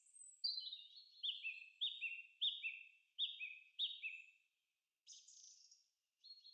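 A small bird calling: a quick run of about six repeated high chirping phrases over the first four seconds, then a brief call near the end.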